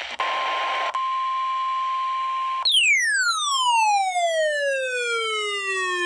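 Midland NOAA weather radio sounding a steady alert tone of about 1 kHz, the weather-radio warning tone sent in the weekly test, for about two and a half seconds. It is then followed by a louder falling pitch sweep, rich in overtones, that glides from high to low over about three and a half seconds.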